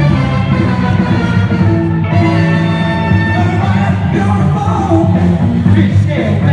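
DJ's music with a sung vocal line, played loud over a PA speaker for the dancers.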